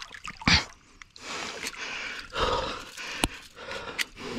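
A person breathing hard in short gasps while straining to grip a large fish at the water's edge, with a few sharp clicks and knocks from the lip grippers and tackle.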